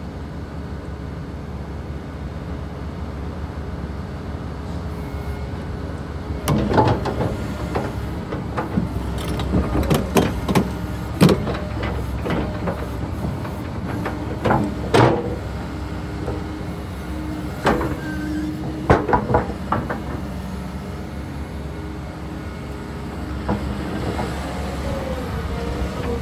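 Volvo ECR145 excavator working: its diesel engine runs steadily, and through the middle there are repeated sharp metallic clanks and knocks from the machine's working parts.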